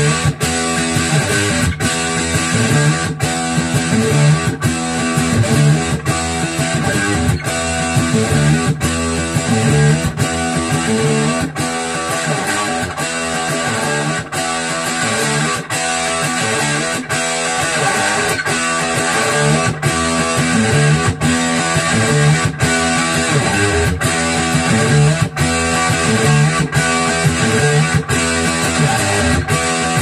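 Electric guitar played through a homemade Jack Orman Overdrive Pro pedal, switched on and overdriving: a repeated riff with a strong strum about every second and a half.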